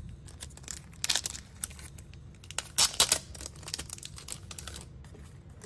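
Card and packaging rustling and crinkling as a photo card set is taken out of its box and handled, with louder crinkles about one second and three seconds in.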